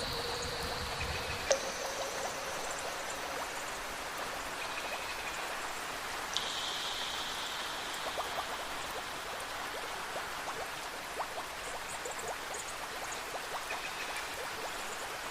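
Steady heavy rain with a bell struck twice, about a second and a half in and again about six seconds in, each note ringing on and slowly fading. A low thunder rumble dies away in the first second and a half.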